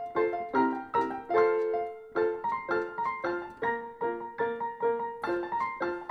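Background piano music: a gentle melody of struck notes, a few a second, each ringing briefly before the next.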